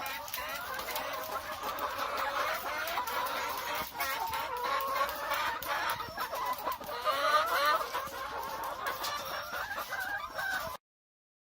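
A flock of caged BV380 layer hens clucking together, many overlapping calls. The sound cuts off suddenly near the end.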